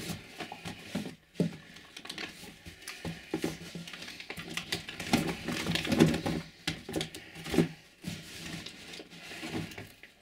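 Small cardboard-tubed firework cakes being lifted and shifted inside a cardboard shipping box: irregular rustling and scraping with light knocks as the tubes are set down against each other, busiest in the middle.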